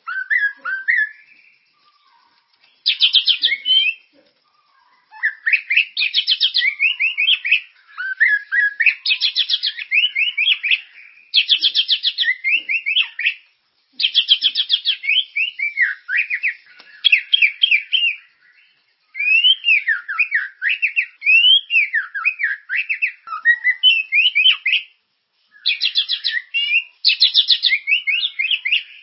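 White-rumped shama (murai batu) singing a lively, continuous song in phrases of a few seconds with short pauses. The phrases mix rapid trills of repeated notes with clear whistles that slide up and down.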